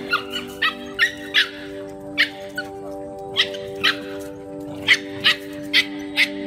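Small dogs yapping: about a dozen short, sharp barks and yips spread through, over background music with long held notes.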